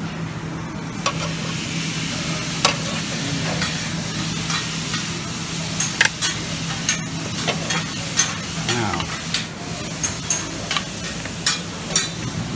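Steady sizzling hiss of food frying on a Mongolian barbecue grill, over a steady low hum. Sharp clicks and clinks of metal tongs against stainless steel food pans come every second or so.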